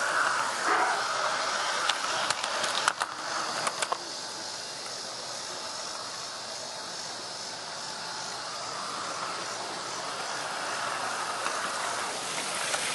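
G-scale garden railway train rolling along its track, heard from a camera riding on it: a steady rushing hiss, with a cluster of sharp clicks about two to four seconds in.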